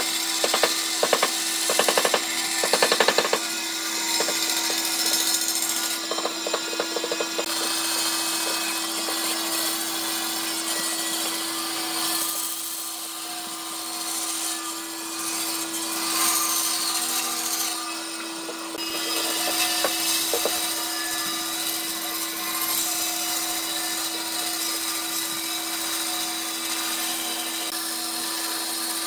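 Band saw running and cutting through a thick softwood beam: a steady motor hum under the hiss of the blade in the wood. A rattle of sharp knocks comes in the first few seconds.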